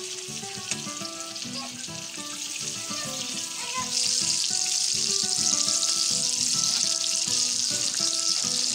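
Hot oil sizzling steadily around breaded chicken drumsticks as they deep-fry, growing louder about four seconds in.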